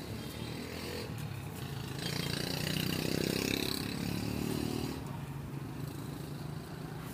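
Street traffic: a motorbike engine passes close by, swelling between about two and five seconds in, then fading back to a steady low engine hum.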